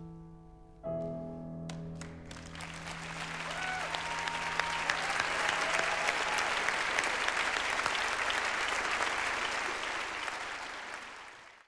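A piano chord struck about a second in rings on under a large audience's applause, which swells up and holds steady, then cuts off abruptly near the end.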